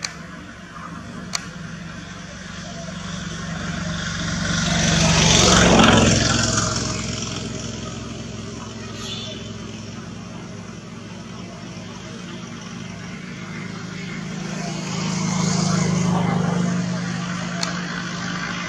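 Motor vehicles passing one after another: a slow rise and fall of engine and tyre noise, loudest about six seconds in, then a second, weaker pass around sixteen seconds.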